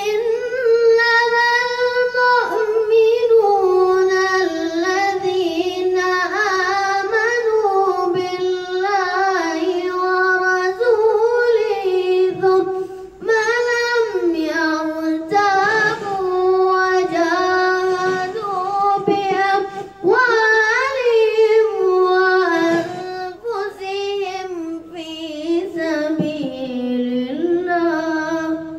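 A boy's solo voice, unaccompanied, in a melodic chant of long held, ornamented notes, with short breaks for breath between phrases.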